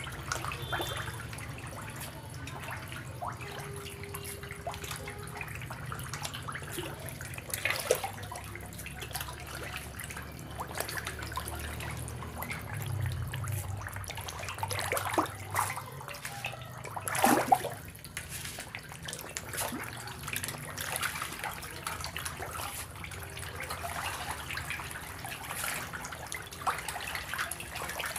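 A crowd of farmed fish splashing and slapping at the water surface as they feed on floating pellets, in an irregular churn with a few sharp louder slaps, the loudest about two-thirds of the way through. A low steady rumble runs underneath.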